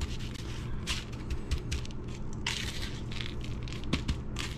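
Fingers pressing and rubbing a raw jack crevalle fillet into coarse, granular steak seasoning on a foam plate: gritty crunching and scraping in a few irregular bursts.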